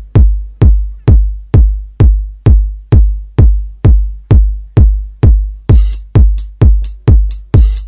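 Electronic music with a drum machine: a steady, loud kick-drum beat, about two hits a second, with bright hi-hat-like hiss joining on each beat near the end.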